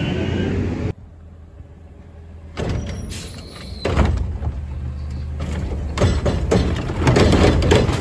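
A compressed-natural-gas garbage truck pulling away, cut off suddenly after about a second. Then a front-loading garbage truck runs at a low steady hum while the cart-grabbing arm on its front carry can grabs and lifts a cart, with clanks and knocks of metal and plastic that grow busier toward the end.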